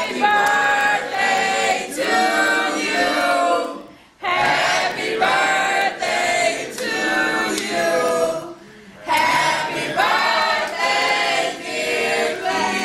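A choir of several voices singing together in held phrases, breaking off briefly about four seconds in and again a little past eight seconds.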